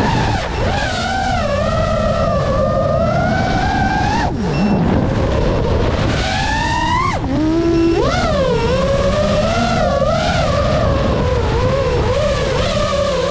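FPV drone's motors and propellers whining, the pitch rising and falling continually with the throttle over a steady low rush. The whine breaks off and dips low about four seconds in, then climbs steeply and drops away again around seven seconds.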